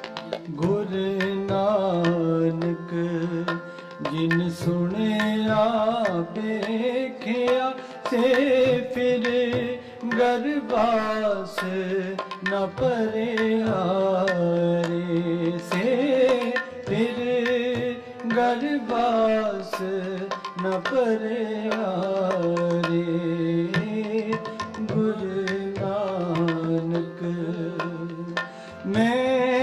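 Sikh shabad kirtan: harmonium and tabla playing, with a sung melody that bends and glides over them.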